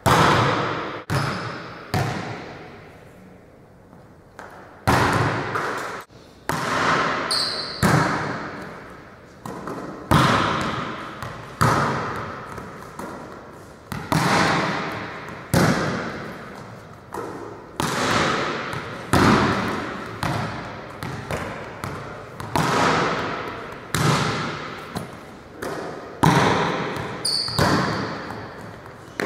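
Volleyball hit again and again, sharp slaps roughly every second as a coach strikes balls at a player who digs them back, each ringing out in the echo of a large gym hall. A couple of short high squeaks are heard among the hits.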